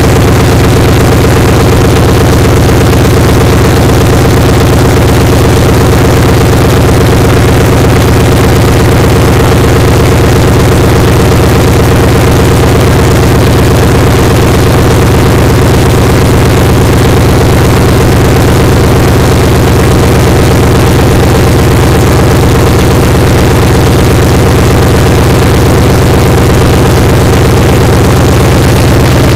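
B-17 bomber's Wright R-1820 nine-cylinder radial engines running steadily at idle, loud and close up, including the uncowled, newly installed replacement engine fitted after the old one's rod bearing failed.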